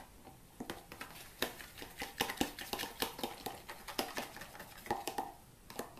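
A fork clicking and scraping against a bowl while stirring a runny mix of mashed banana and honey, in quick irregular taps that begin about half a second in.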